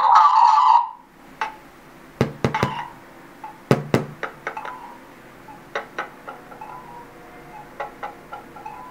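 A brief loud, tinny burst in the first second, then an irregular scatter of sharp clicks and light knocks, the strongest a few seconds in.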